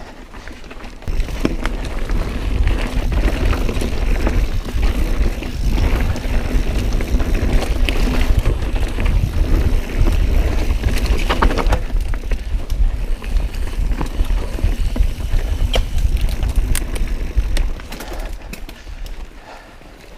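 Mountain bike riding fast over a rocky trail: a heavy low rumble of wind and tyre noise on the helmet or bike camera's microphone, with many sharp clicks and knocks from the bike rattling over rocks. It sets in about a second in and eases off near the end.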